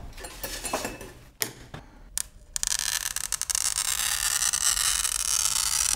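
A glass cutter scoring a sheet of glass: a steady, scratchy scrape lasting about three seconds, after a couple of sharp clicks. It is an unpleasant sound.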